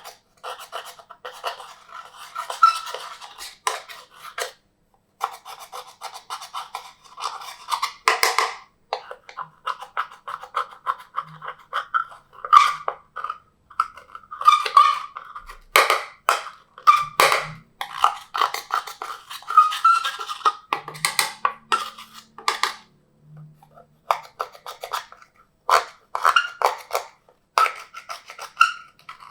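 Glossy slime being squished and stretched by hand: dense, irregular wet clicking and crackling pops, coming in bursts with short pauses between.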